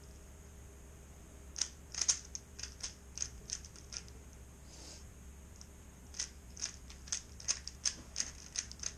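Rubik's cube being twisted by hand: quick plastic clicks as the layers turn, in short runs. The first comes about a second and a half in, and a busier run follows from about six seconds.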